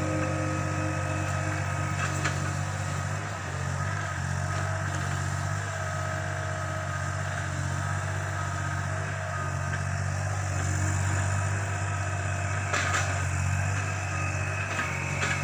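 Yanmar ViO30 mini excavator's three-cylinder 3TNV88 diesel engine running steadily, with a few sharp metallic knocks.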